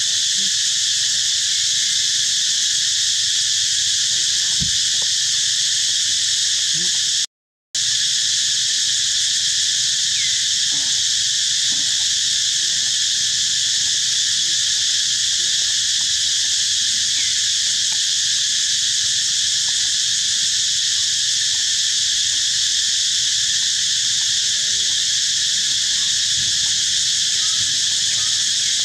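A steady, high-pitched chorus of insects that runs without a break. It cuts out completely for a moment about seven seconds in.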